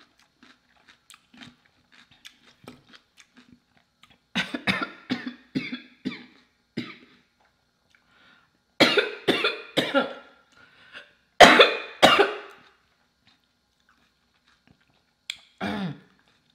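A woman coughing in three fits: a run of short coughs about four seconds in, then harder coughs around nine seconds, and the loudest pair about eleven to twelve seconds in.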